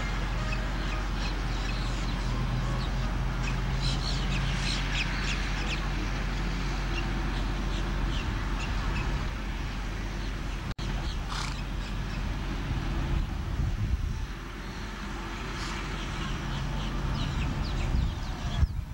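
Outdoor ambience: a steady low rumble with scattered bird calls coming and going, and a brief dropout a little under halfway through.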